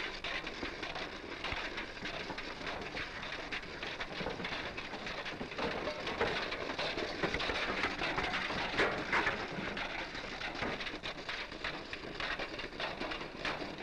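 Rattling and clattering of an old car's body and the pots and pans hung on it as it drives, a dense crackle of small knocks with a few louder clanks midway, on a hissy early-1930s film soundtrack.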